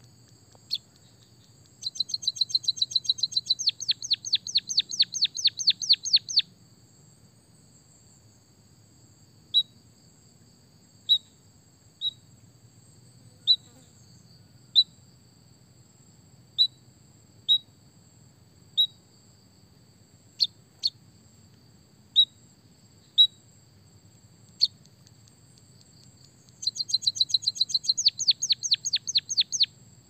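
White-headed munia song: two fast trills of about five high notes a second, one starting about two seconds in and lasting some four seconds, the other near the end. Between them come single short high chirps about a second or so apart.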